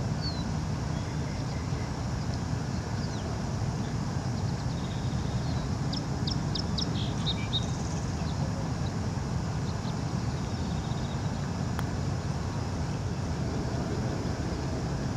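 Steady low outdoor rumble, with a bird giving a quick run of short high chirps about six to seven seconds in.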